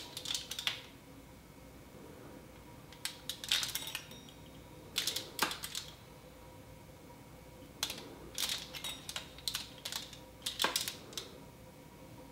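Pizza cutter wheel rolling through a thin sheet of barley dough on a foil-lined baking sheet, in about five short bursts of clicking and scraping strokes, a second or two apart.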